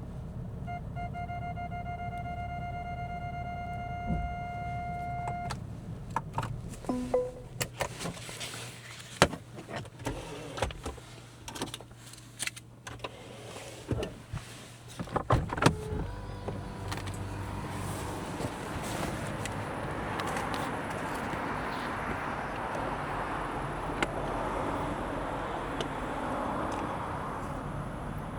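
Car cabin sounds: a steady electronic chime tone for about five seconds, then a run of clicks and knocks from handling controls or doors, then a steady rushing noise like the climate-control fan.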